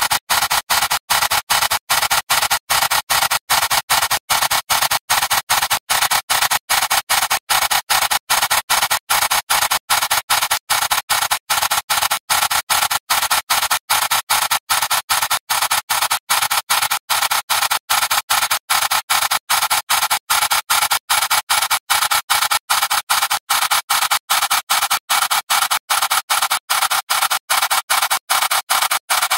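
Harsh, hissing, crackling distorted audio, the remains of a clip degraded by more than ten thousand repeated video exports, with the low end gone. It pulses on and off evenly about three times a second.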